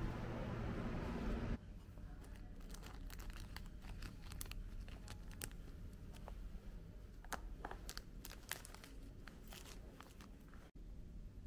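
Steady outdoor background noise for the first second and a half, then cut off. After that a clear plastic pouch crinkles and rustles as it is handled, with many small irregular crackles and clicks.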